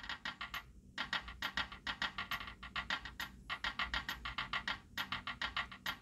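Samsung SGH-D600 mobile phone playing a quiet ringtone through its loudspeaker: a fast, even run of short clicky notes that breaks off briefly three times.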